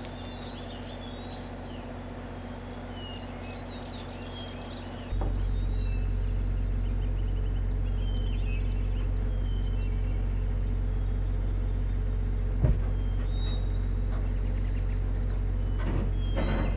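Steady low mechanical hum of machinery running, with small birds chirping over it. There is a single sharp knock about two-thirds through, and near the end a few knocks as a wood bison steps onto the wooden floor at the container door.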